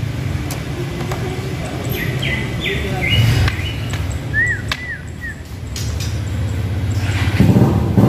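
A white-rumped shama giving a few short whistled notes: some flat notes about two to three seconds in, then three quick arched whistles near the middle. A steady low rumble lies underneath and grows louder near the end.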